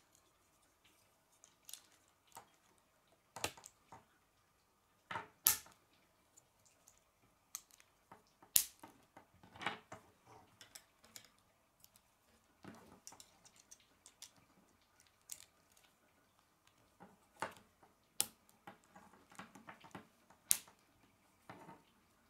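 Plastic K'nex rods and connectors snapping and clicking together as they are put together by hand: irregular sharp clicks, a few much louder than the rest, with soft plastic rattling and rubbing between them.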